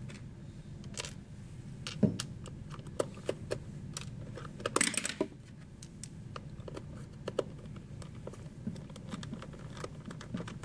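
Scattered small clicks and taps of screws being set into the plastic housing of an electric can opener and a screwdriver being handled, with a sharp click about two seconds in and a quick cluster of clatter about five seconds in.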